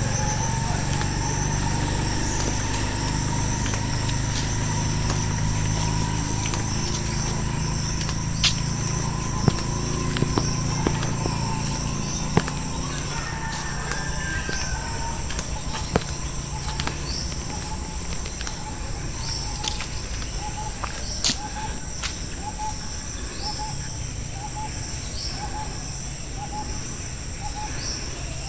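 Rural outdoor ambience: insects droning steadily at a high pitch, with birds calling. From about halfway through, a short call repeats roughly once a second. There are a few sharp clicks, and a low rumble in the first half fades away.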